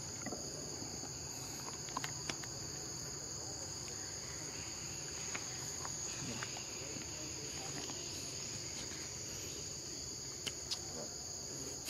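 Steady, high-pitched chorus of forest insects, a continuous shrill drone, with a few faint ticks about two seconds in and again near the end.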